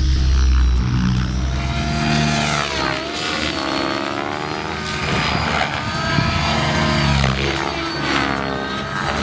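Radio-controlled helicopter flying, its motor and rotor sound sweeping up and down in pitch as it manoeuvres.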